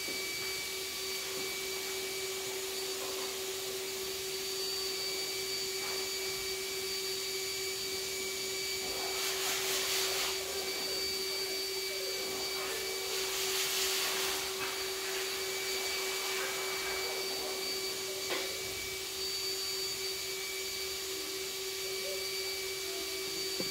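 Steady machine hum: one constant mid-pitched tone with a fainter high whine over a hiss, unchanging throughout. Two short rustling noises come about ten and fourteen seconds in.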